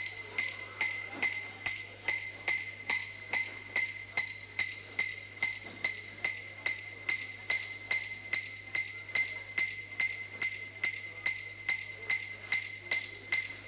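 A struck percussion instrument beating a steady, even pulse, a little over two strikes a second. Each strike is a short, bright clink that rings the same high note.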